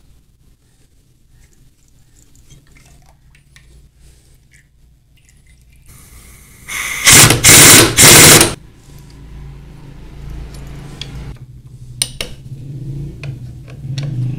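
A power impact wrench runs in three loud bursts over about two seconds, undoing the nut on a motorcycle engine's balancer gear. Quieter clinks and knocks of tools and parts follow.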